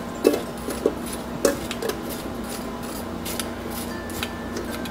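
A metal mesh kitchen strainer clinking and knocking several times as squeezed chile pulp is emptied out of it, over a steady low hum.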